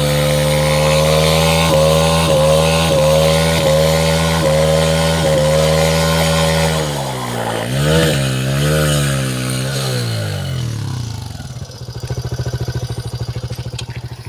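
125 cc motorcycle engine held at high revs during a burnout with the rear tyre spinning in place, with brief dips in pitch. About seven seconds in it is blipped up and down a few times, then falls away to a low idle.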